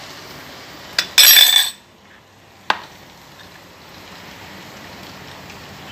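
A metal spoon working against dishes and the pan as salt is added: a tap, a short loud scraping rattle, then a single clear clink a second later, over a faint steady hiss.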